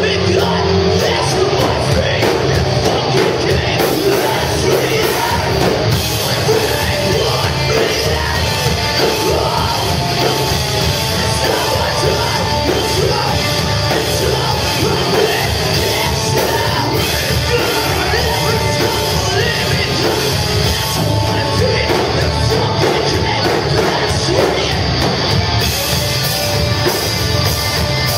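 A live rock band playing loud: distorted electric guitars, bass and drums, with a vocalist singing and yelling over them.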